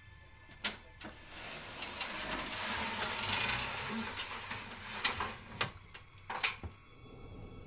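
Wooden loft ladder being drawn down from an attic hatch with a hooked pole. A sharp click comes just under a second in, then a long sliding scrape for a few seconds. About five seconds in come four sharp knocks and clunks as the ladder sections come down.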